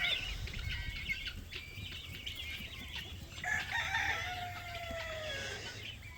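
A rooster crowing once, a long call with a slightly falling pitch starting about three and a half seconds in, with chickens clucking around it.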